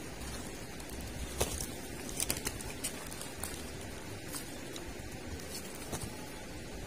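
Steady outdoor background noise with a low rumble, broken by a few short sharp clicks and ticks, a small cluster of them about two seconds in.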